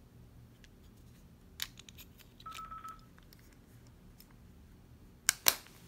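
Plastic case of a Chevrolet Malibu smart key fob being handled and snapped back together: scattered small clicks, a brief high beep about halfway through, then two sharp clicks near the end, the loudest sounds here.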